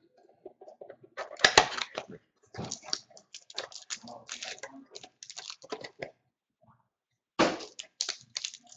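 A cardboard box of football trading cards being opened by hand and the cards slid out: a quick run of scrapes, cracks and rustles of cardboard and card stock. The loudest comes about a second and a half in, there is a pause of about a second near six seconds, and another cluster near the end.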